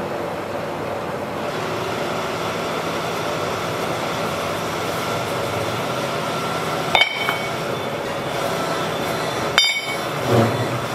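Steady workshop machinery running, with two sharp, ringing clinks of steel about two and a half seconds apart near the end, as machined steel truck-axle pieces are set down among others on a pile.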